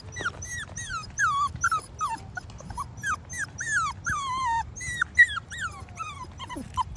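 Pit bull puppy whining in a rapid string of short, high squeals, each falling in pitch, about three a second.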